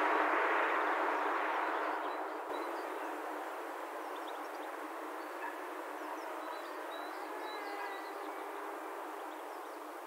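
Parrot Disco fixed-wing drone's electric motor and three-blade propeller running in flight: a steady noisy buzz that fades over the first few seconds, then holds even. A faint wavering tone and a few small chirps come in during the later seconds.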